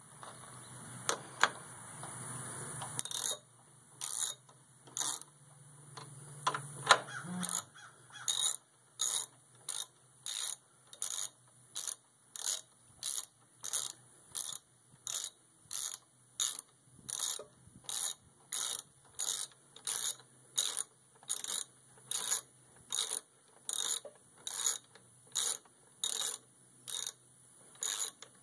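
Ratcheting wrench clicking as it tightens a tractor's muffler bolt: short ratcheting strokes at an even pace of nearly two a second. A few separate knocks come first.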